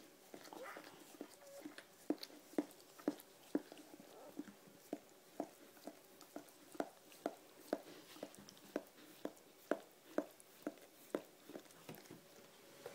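Mother dog's mouth sounds as she tends her newborn puppy: short, regular strokes about two a second.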